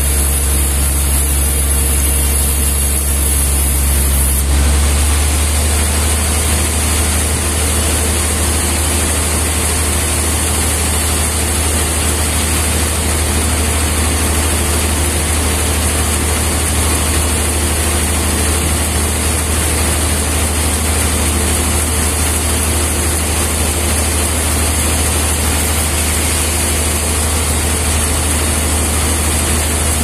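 Large band sawmill running steadily as it saws through a big trembesi (rain tree) log, a constant machine drone with a high hiss. The drone changes tone about four and a half seconds in.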